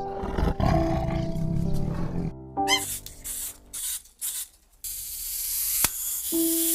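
A lion roaring, a low rumble over background music, followed by a quick rising whistle and then a hissing noise under the music.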